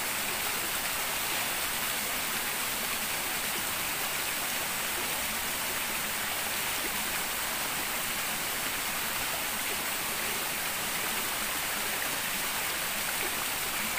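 Shallow rocky stream running, a steady, even rush of water over stones.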